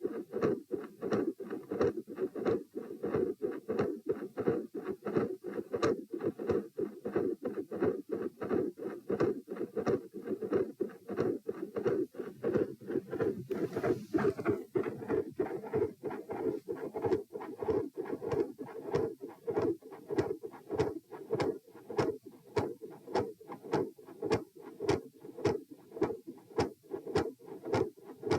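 Heart sounds picked up on the chest: a steady run of lub-dub heartbeats, each a short dull thud. There is a brief rustle about halfway through.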